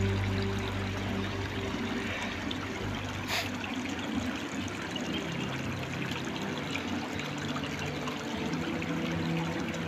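River water running and trickling steadily.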